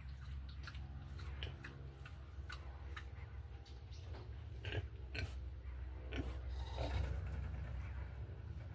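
Pigs grunting, a run of short grunts that grows busier about five to seven seconds in, over a steady low hum.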